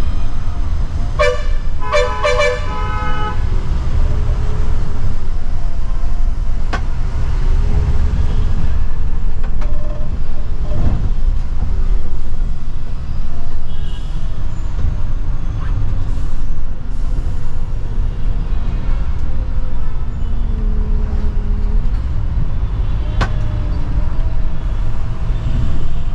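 Steady low engine and road rumble inside the cab of a Scania multi-axle bus moving through traffic. About one to three seconds in, a horn gives several short toots in quick succession.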